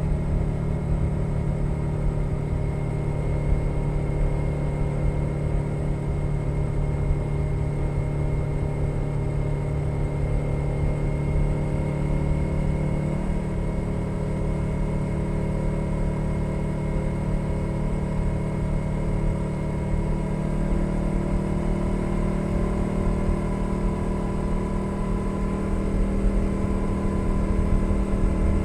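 2021 Suzuki SV 650's 90-degree V-twin engine running at steady cruising revs through a Leo Vince Nero aftermarket exhaust, heard from under the seat. The engine note steps up in pitch a little before halfway through and gets louder near the end as the bike accelerates.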